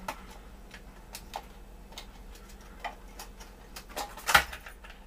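Clear plastic lure package being handled and pried open: scattered small clicks and crackles of the plastic, with one louder snap near the end.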